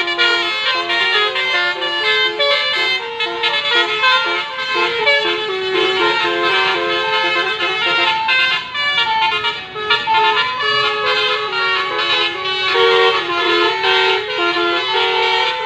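Telolet bus horns, the multi-trumpet musical air horns of Indonesian tour buses, sounding over one another and playing quick stepped tunes, with no break in the sound.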